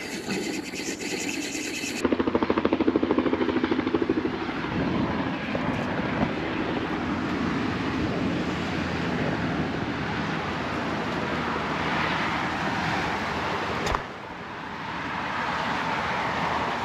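An engine running with a fast, even pulse that is plain for a couple of seconds, under a steady rushing noise like wind. The sound breaks off abruptly near the end and the rushing resumes more quietly.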